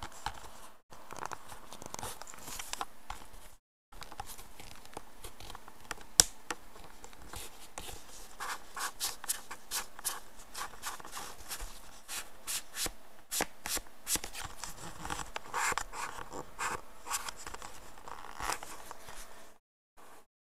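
Handling noise from a plastic over-ear gaming headset being flexed and its self-adjusting headband pulled: rubbing and scraping with scattered clicks, and one sharper click about six seconds in.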